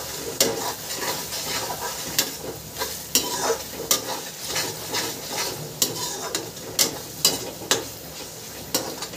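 Thick masala paste sizzling in oil in a metal kadhai as a spatula stirs it, with sharp scrapes and knocks of the spatula on the pan every second or so, at irregular intervals. The masala is being fried down (bhuna) in its oil for a curry.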